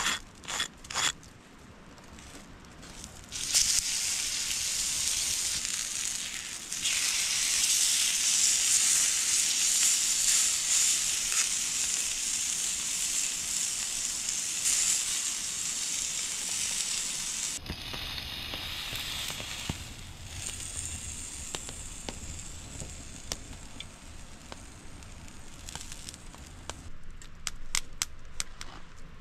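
Food sizzling on a hot cooking stone over a fire: the sizzle starts suddenly a few seconds in and gets louder, then drops to a quieter hiss with fire crackles partway through, with sharp snaps near the end.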